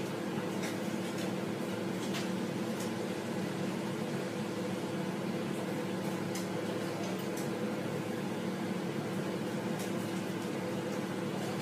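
Steady hum of a running kitchen appliance, with a few faint clicks scattered through it.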